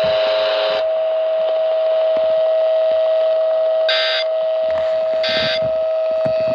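A weather radio sounding a steady single-pitch alert tone. From about four seconds in, short electronic beeps sound over it about every 1.3 seconds, three in all.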